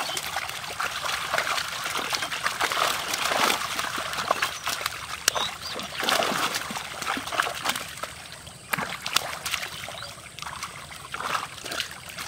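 Pond water splashing and trickling around a drawn-in seine net crowded with live fish. Many quick, sharp splashes come from fish flapping in the net and hands working it. The sound is busiest in the first half and eases off for a moment past the middle.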